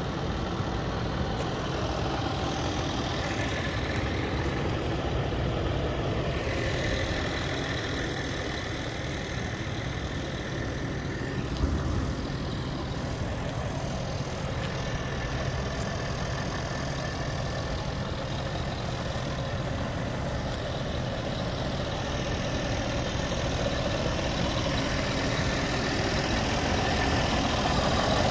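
Scania G480 truck's straight-six diesel engine idling steadily, with one brief low bump about twelve seconds in.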